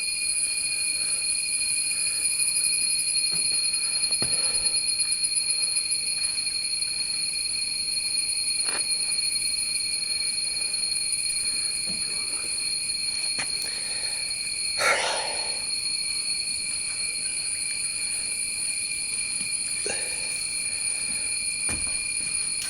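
Steady chorus of jungle insects, several constant high-pitched tones ringing together, with a brief louder call about fifteen seconds in.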